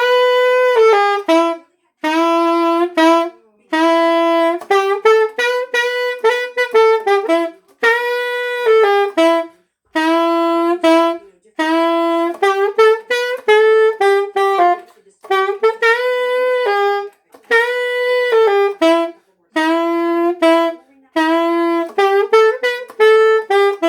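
Selmer alto saxophone played solo, with no backing track: a string of short melodic phrases of several notes each, separated by brief pauses.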